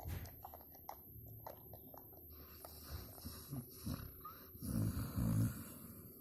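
A sleeping pet snoring: a few low snores about three and a half seconds in, then the loudest two close together about five seconds in, with soft clicks and breathing between.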